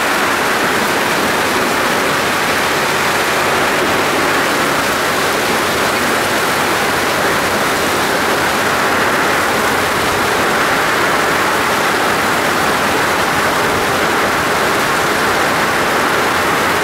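Heavy rain bucketing down in a steady, loud rush of noise.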